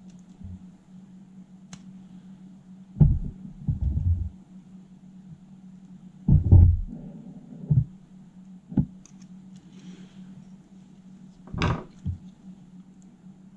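Dull knocks and clunks as pliers, a screwdriver and hands work a circuit board free from a cassette deck's tape mechanism, about seven of them at irregular intervals and loudest near the start and middle, over a steady low hum.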